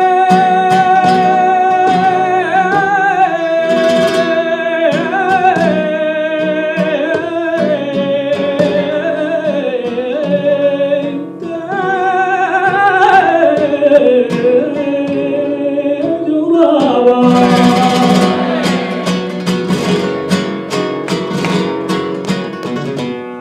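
Flamenco cante por farruca: a male cantaor holds long, wavering melismatic lines over acoustic flamenco guitar. About 17 s in the voice drops away and the guitar takes over with fast strummed chords.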